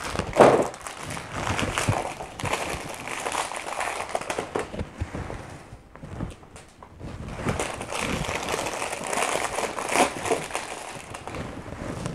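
Plastic wrapper of an Oreo cookie pack crinkling and crackling as it is handled and cookies are pulled out, in two spells with a short lull about halfway.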